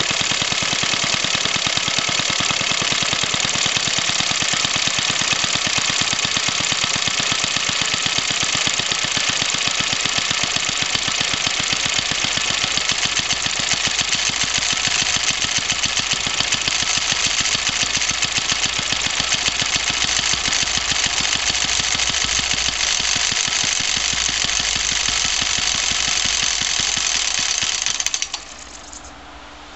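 Suffolk 75cc two-stroke engine of a compressor set running steadily with rapid, even firing, then stopping abruptly near the end.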